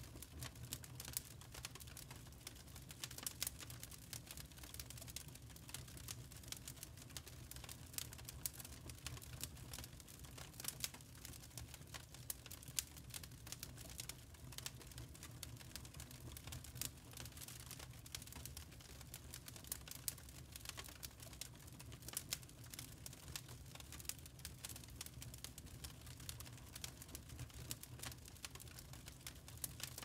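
Burning charcoal embers crackling: faint, irregular ticks and snaps, several a second, over a low steady hum.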